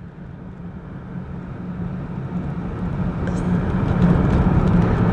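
Car engine and road noise heard from inside the cabin while driving, a steady low rumble that grows steadily louder.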